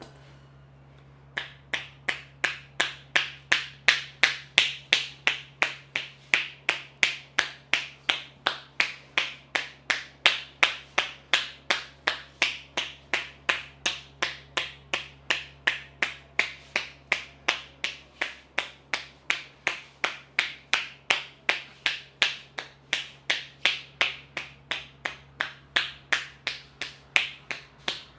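Rapid, even hand strikes of an Indian head massage, palms tapping the head about three times a second, starting about a second and a half in.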